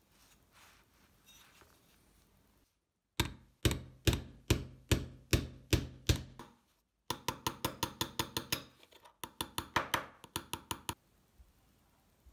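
A hammer tapping a small oval brass blowtorch part: a run of sharp metallic blows at about two to three a second, a brief pause, then a faster run of about four blows a second.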